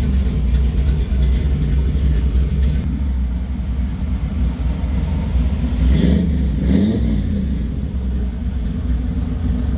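A 1965 Chevy Nova's 350 small-block V8 running loudly through headers that exit through the fenders, with a brief rise in the engine sound about six seconds in.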